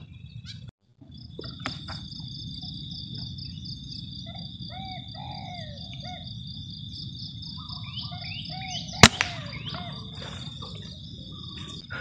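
A single sharp shot from an uklik air rifle about nine seconds in, a clean hit that drops the dove on the spot. Behind it runs a steady high insect buzz with scattered short bird chirps.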